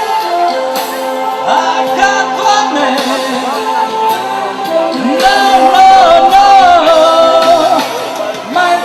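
Italian pop song: a singer holding long, wavering notes over a backing track with guitar and drums.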